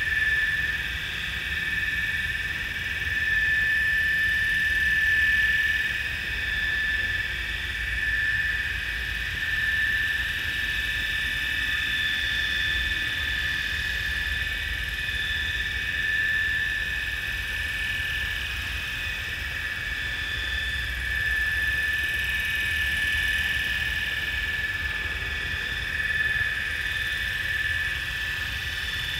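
700-size radio-controlled helicopter with Radix main blades hovering just above the ground: a steady high whine over a low rumble, swelling and easing slightly as it holds position.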